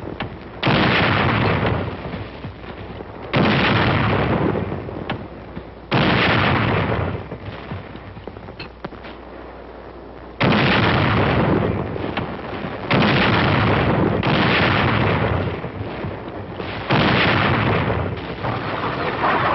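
Howitzer fire: a series of about six heavy booms, each cutting in suddenly and dying away over a second or two, at uneven intervals of roughly two to four seconds.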